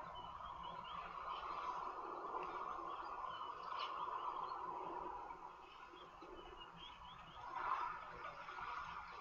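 Birds calling: many short chirps over a steady chorus, louder for the first five seconds, with a brief swell near the end.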